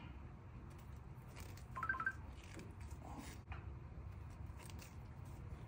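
A few faint clicks and knocks of a hand crimping tool squeezing heat-shrink butt connectors onto wire ends, over a low steady hum.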